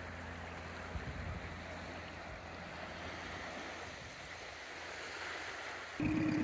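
Gentle wash of small waves on a sandy shore, with faint background music fading out over the first few seconds. Near the end a boat's outboard motor cuts in suddenly and runs steadily, much louder than the water.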